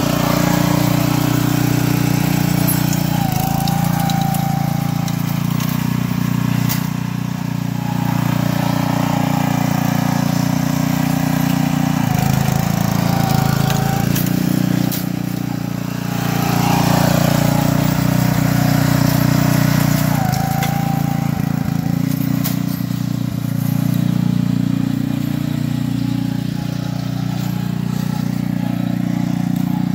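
Billy Goat walk-behind core aerator's small gasoline engine running steadily, with a few brief dips in loudness.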